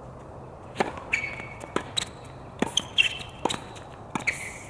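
Tennis serve and rally on an outdoor hard court: a string of sharp racket hits and ball bounces, starting with the serve about a second in, with short high squeaks of sneakers on the court between them.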